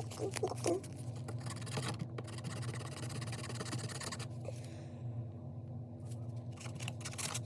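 Quick scratchy strokes of a hand abrasive scraping paint off a small pot-metal brooch, pausing briefly about halfway through, over a steady low hum.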